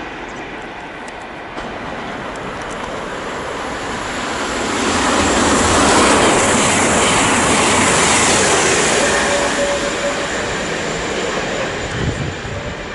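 A train passing through the station: a rushing rail and wheel noise that swells about four seconds in, stays loud for several seconds, then eases off, with a brief thin squeal from the wheels near the end of the loudest part.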